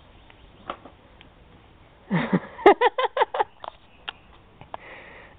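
A person laughing: a quick run of short pitched "ha" pulses, about six or seven a second, beginning about two seconds in and lasting about a second and a half.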